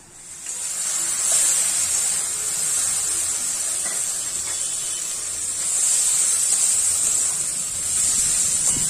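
Sliced onions and a water-mixed ground spice paste frying in hot oil in a kadai, breaking into a loud, steady hissing sizzle within the first second as the wet paste meets the oil, while a metal spatula stirs them.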